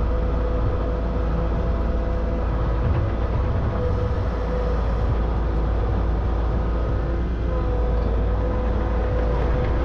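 A large engine running steadily with a deep, constant rumble and a faint steady whine above it.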